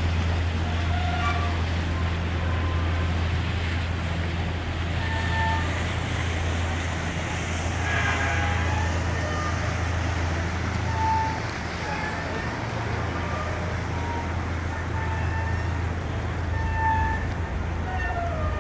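Steady low drone of an AIDA cruise ship passing close by under way, with scattered distant voices and calls over it.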